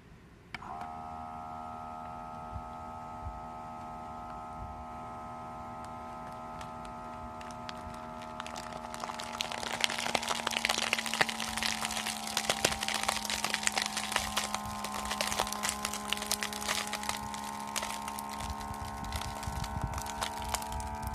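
Freshpack Pro vacuum sealer's pump switching on with a click and running with a steady hum. About nine seconds in, the plastic vacuum bag starts crackling and crinkling loudly as the air is drawn out of it.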